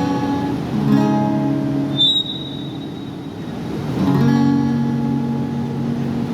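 Guitar playing the closing chords of a song: a chord struck about a second in, a quieter stretch, then another chord about four seconds in that rings on. A short high tone sounds briefly about two seconds in.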